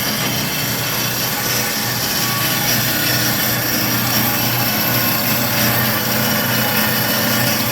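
Cosen C-420NC horizontal bandsaw running steadily as its blade cuts through pipe at a slow feed, a constant hiss of the cut over the hum of the drive.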